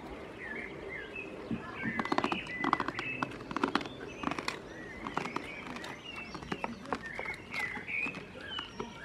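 Songbirds singing outdoors: many short chirps and whistled phrases throughout. A cluster of sharp clicks and knocks sounds about two to four and a half seconds in, with a few more scattered later.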